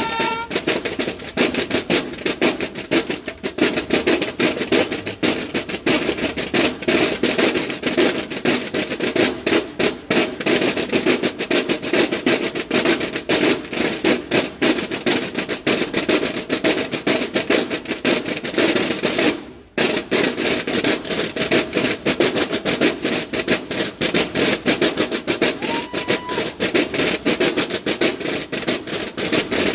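Banda de guerra snare drum line playing a fast, dense drum cadence together. About two-thirds of the way through the drumming stops dead for a split second, then starts again.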